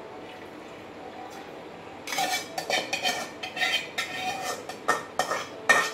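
Cookware lids and pans clattering and clinking as they are lifted and handled on a gas stove, starting about two seconds in after a steady low hiss, with the loudest clank near the end.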